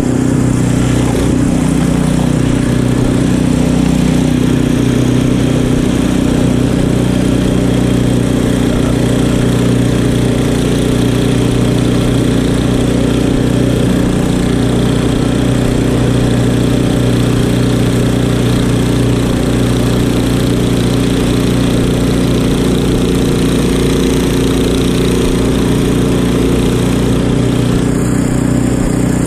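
Craftsman two-stage snowblower's engine running steadily at working speed while clearing deep snow.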